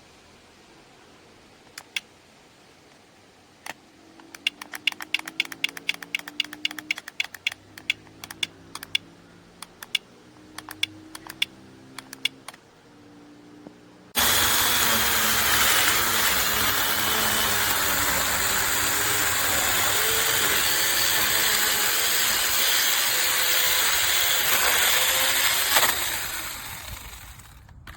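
A run of sharp clicks, then a battery-powered mini chainsaw's motor starts abruptly about halfway through. It runs loud and steady for about twelve seconds and fades out near the end.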